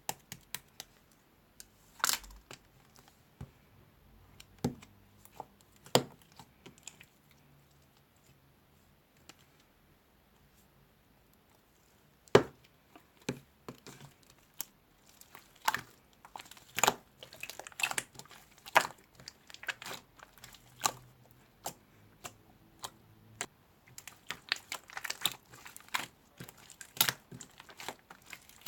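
Irregular sharp clicks, taps and crinkling handling noises, sparse at first. They fall quiet for a few seconds, then come back in denser clusters.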